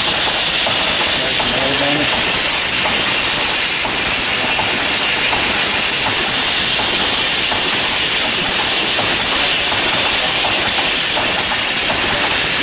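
Vintage horizontal single-cylinder stationary gas engine running steadily: a dense, even mechanical clatter with a hiss over it.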